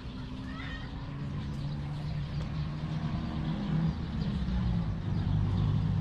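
Low engine hum, steady in pitch and slowly growing louder.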